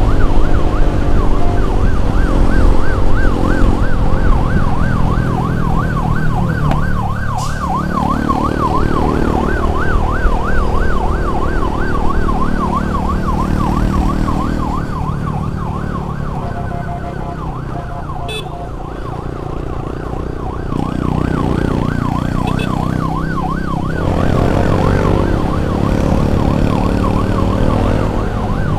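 Electronic emergency siren in a fast yelp, its pitch swinging up and down several times a second, over a loud low rumble of vehicle and road noise. The siren grows fainter past the middle and comes back loud near the end.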